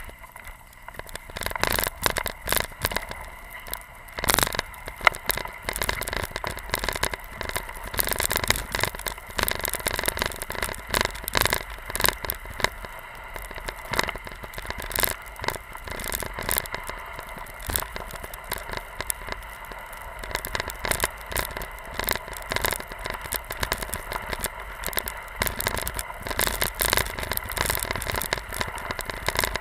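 Skis sliding and scraping through snow while being towed, with a constant run of crackles, clicks and knocks.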